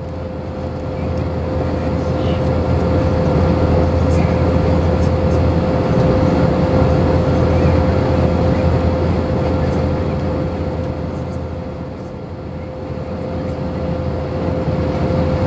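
Cabin noise inside an Airbus A321-211 in flight: the steady roar of airflow and its two CFM56-5B engines heard from a seat over the wing, with a constant tone running through it and a low hum beneath. The level swells a little a few seconds in and eases briefly near the end.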